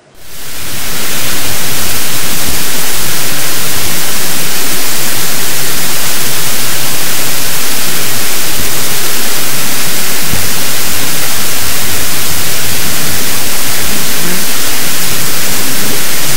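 Loud, steady static hiss like white noise, fading in over about the first second and then holding unchanged.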